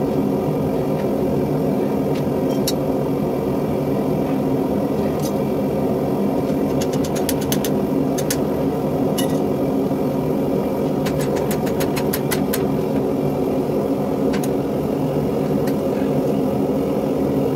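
Steady, loud drone of a running forge in a blacksmith's shop, with light clicks scattered over it, bunched about seven seconds in and again around twelve seconds.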